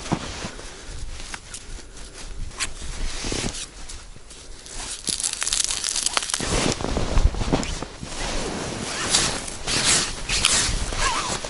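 Irregular crunching and scraping of packed snow, mixed with the rustle of winter gloves and clothing, as a tent guy line is pulled taut and staked into a snowbank. The handling grows louder and busier about halfway through and again near the end.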